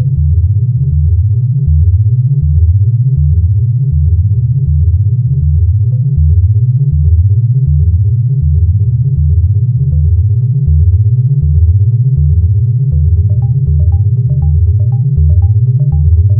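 Procedurally generated electronic music made in ChucK: a repeating synthesizer bass figure that steps upward over and over, a quick steady pulse above it and held drone tones. About three-quarters of the way through, a series of higher blips joins in.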